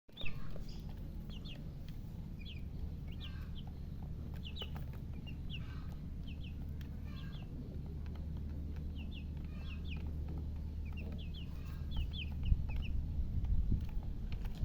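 Baby chicks peeping: a stream of short, high-pitched, downward-sliding peeps from several chicks over a steady low hum, with a few low thumps near the end.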